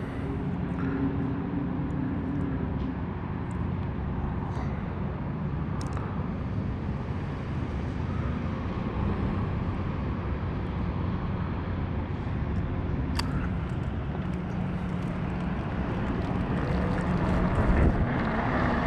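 Steady city traffic noise with a low hum while the bike stands still. Near the end the BBSHD mid-drive electric motor whines up in pitch as the bike pulls away.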